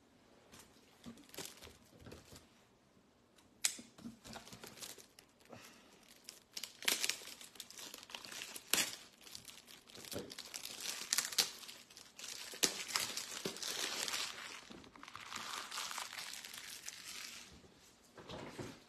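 Something crinkly handled by hand, crackling and rustling in irregular bursts, busiest and loudest in the second half.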